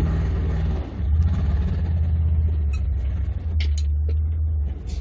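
Suzuki Samurai's four-cylinder engine idling with a steady low rumble, dipping briefly about a second in and again near the end.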